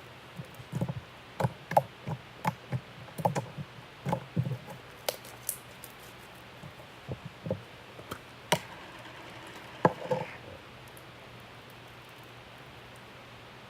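Slime being handled, making an irregular run of small clicks and pops that stops after about ten seconds.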